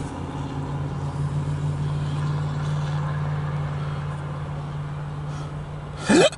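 Steady low rumble and hum of a CSX empty autorack freight train rolling past, swelling a second or two in and easing off later. A short loud sound breaks in near the end.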